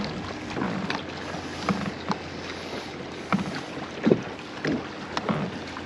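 Small waves lapping and slapping against a kayak hull, with irregular short knocks and gurgles and a steady rush of wind on the microphone.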